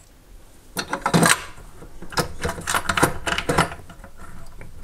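Short clicks and knocks of hands working a white plastic cabinet hanging bracket against the cabinet's side panel: a cluster about a second in, then a run of taps and scrapes in the middle.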